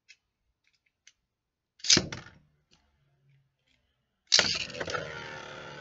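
Beyblade Burst spinning tops in a plastic stadium: a sharp clack about two seconds in, then about four seconds in a sudden loud launch into a steady rattling whirr of tops spinning and scraping against the stadium floor, with repeated small knocks as they strike.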